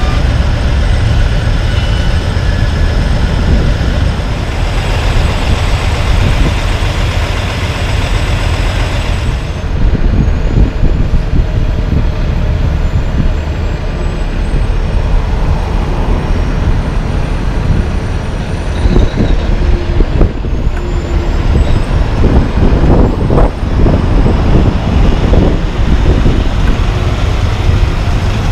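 Heavy diesel semi truck running as it pulls a lowboy trailer loaded with an asphalt milling machine slowly past, a steady low engine rumble with louder pulses in the second half.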